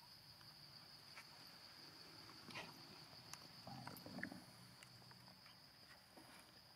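Near silence: a faint, steady high-pitched whine, with a few soft, faint small noises about two and a half to four and a half seconds in.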